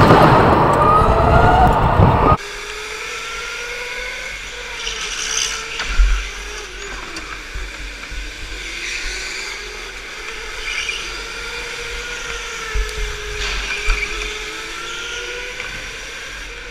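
Electric go-kart motor whining, its pitch rising and falling as the kart speeds up and slows through the corners, with a few short low thumps. For the first couple of seconds a louder, rougher onboard noise covers it, cutting off abruptly.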